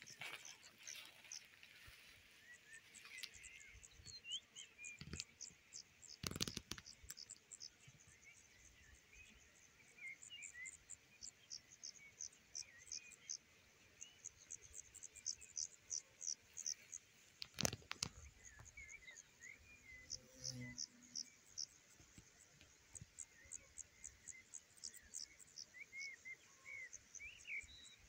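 Faint meadow ambience: crickets chirping in short, very high-pitched trains, with scattered small bird chirps. There are two brief thumps, about six and eighteen seconds in.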